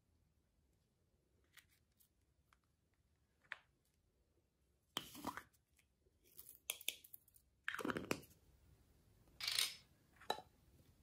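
A small plastic cup of flower sequins being handled and shaken out onto slime glue. There are a few faint ticks at first, then from about five seconds in several short crinkling, rustling bursts, one every second or so.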